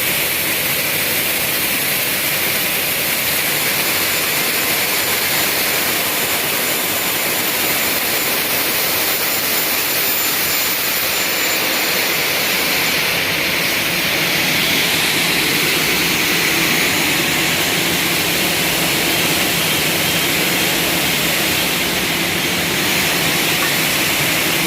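Double-head aluminium cutting saw running, its large circular saw blades spinning with a steady, even whirring. A faint high whine fades out about halfway through.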